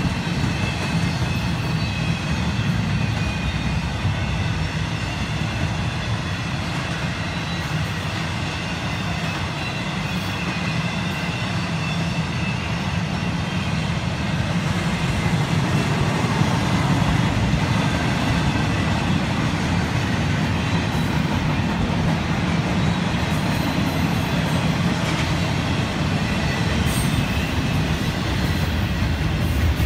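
CSX double-stack container train rolling past: a steady rumble of steel wheels on rail, with faint high ringing tones above it, growing slightly louder about halfway through.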